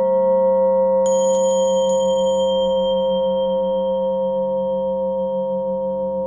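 Tibetan singing bowls ringing out after a strike, the deep bowl's hum wobbling in a slow, even pulse as it sustains. About a second in, a higher, bright metal bell is tapped a few times, its ring fading within a couple of seconds.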